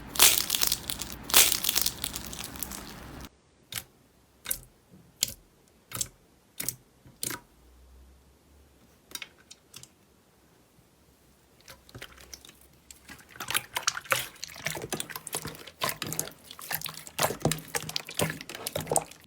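Slime handled close to the microphone. It opens with loud crunchy crackling, then after an abrupt change comes a run of single sharp pops about every two-thirds of a second. After a quiet stretch, dense crinkly crackling builds again toward the end.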